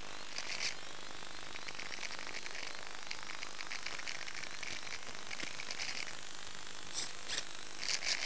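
Steady hiss broken by short crackling bursts every second or so, from the FPV plane's onboard audio with its motor stopped. The bursts come closer together near the end.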